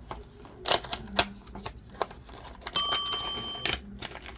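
Clicks and knocks of a diecast toy car and its packaging being handled, with a bright metallic ring a little under three seconds in that fades for about a second and is then cut off short.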